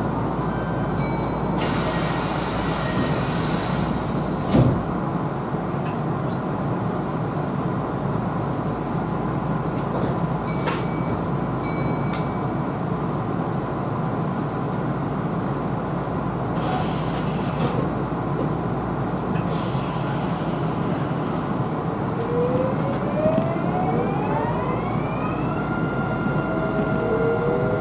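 Kintetsu Series 21 electric train standing at a platform with a steady hum, a few short clicks and beeps, and several brief hisses. Near the end the traction motors' inverter starts a rising whine as the train pulls away.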